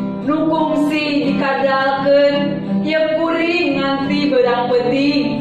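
Voices singing a slow melody with held notes over acoustic guitar accompaniment.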